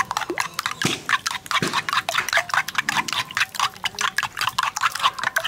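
A steel spoon beating raw eggs in a bowl, clicking rapidly against the bowl at about seven strokes a second, with the wet slosh of the eggs.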